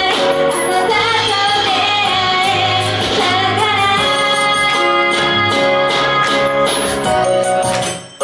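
A female vocalist sings a pop song live over instrumental backing with sustained keyboard chords. Just before the end the music drops out for a moment.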